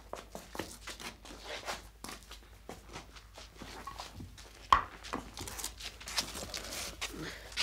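Scuffling of people moving at close quarters: shuffling footsteps and clothing rustling irregularly, with one sharp knock a little under five seconds in.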